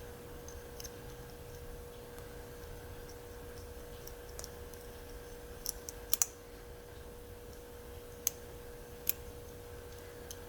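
Light, scattered metallic clicks of a dimple pick working the spring-loaded pins of a Yale dimple padlock under light tension, while the picker hunts for a binding pin. The loudest clicks come as a quick cluster about six seconds in, over a faint steady hum.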